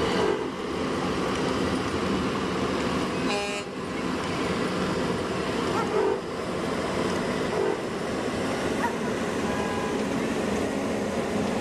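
Steady drone of truck engines running, with a few short toots of a vehicle horn.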